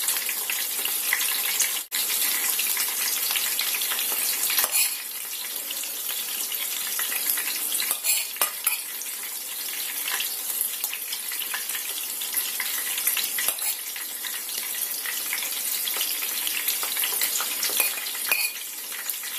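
Chicken fillets frying in hot oil in a pan, a steady sizzle, with a few light clicks of a metal spoon against the pan.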